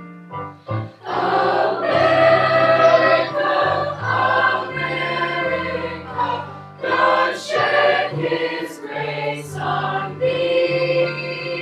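Choir singing with a sustained keyboard accompaniment.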